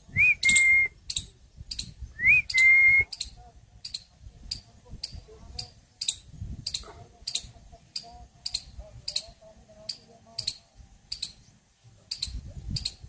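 Two short whistles near the start, each rising quickly then holding one pitch, over a steady high ticking about twice a second.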